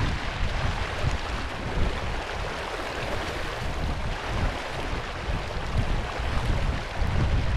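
Wind buffeting the microphone over the rush and splash of water in a sailboat's wake as the yacht sails under way.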